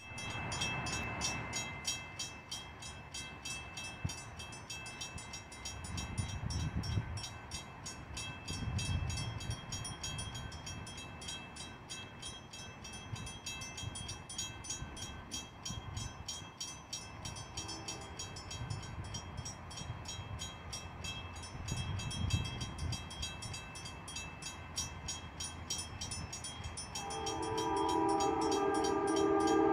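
Railroad crossing bell ringing steadily at a grade crossing with its signals flashing, over low rumbles that come and go. A brief faint horn sounds a little past halfway. Near the end the approaching Amtrak locomotive's horn starts sounding loudly as it nears the crossing.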